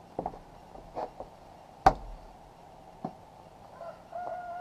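Young puppies shifting about in a wicker basket: a few light knocks and scratches, with one sharper knock a little before the middle. Near the end a faint, steady whine starts.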